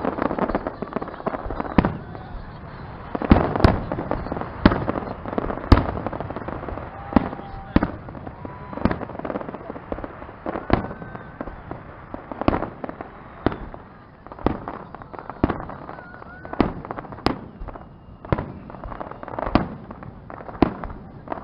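Fireworks display: a long run of sharp bangs from bursting shells, irregularly spaced at about one a second, with a few heavier bangs clustered around four to six seconds in.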